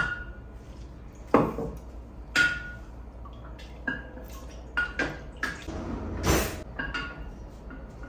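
A metal spoon clinking against a glass mason jar while stirring honey lemonade. There are about nine irregular clinks, some ringing briefly.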